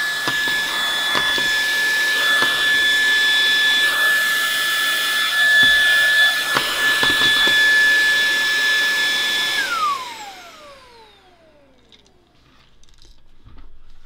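VTOMAN ToolCore V22 cordless handheld vacuum running with its floor head, a steady high whine over rushing air, with a few sharp clicks. About ten seconds in it is switched off and the whine falls away as the motor spins down.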